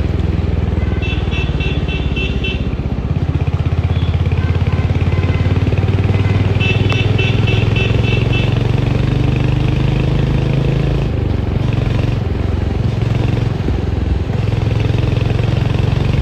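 Royal Enfield Hunter 350's single-cylinder engine and exhaust running under way, getting louder about three seconds in. Two runs of rapid high beeps, about four a second, sound over it.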